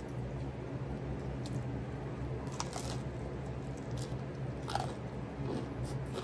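Close-up eating sounds: a person biting into and chewing a slice of chicken-crust pizza topped with romaine Caesar salad, with a few short crunches, the clearest about three seconds and about five seconds in, over a steady low hum.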